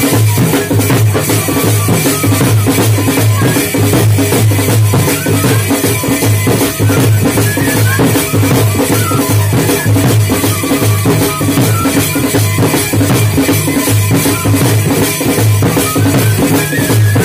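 Dhol drums playing a loud, steady beat, with melodic instrument notes over it.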